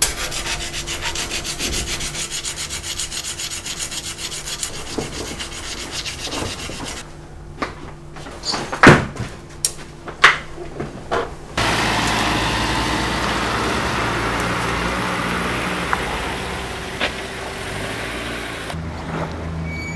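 Rapid, even rasping strokes of hand work on a steel speargun shaft held in a bench vise, followed by a few sharp knocks. About halfway through, this gives way to the steady running of a vehicle towing a boat trailer, with a low hum.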